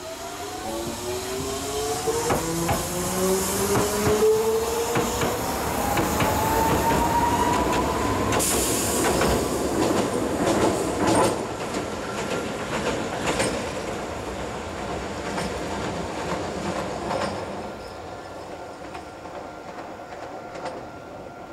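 Hiroden (Hiroshima Electric Railway) tram passing over a river bridge. Its motor whine rises steadily in pitch over the first several seconds, the wheels click over the rail joints, and the sound fades near the end.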